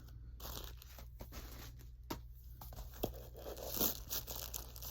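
Packaging being handled: rustling and crinkling with scattered light clicks and taps, growing busier about halfway through.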